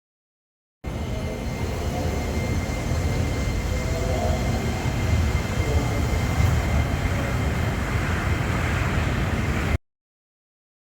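Steady low rumble of a train running, with a faint steady high whine over it. It cuts in abruptly about a second in and cuts off just as suddenly near the end.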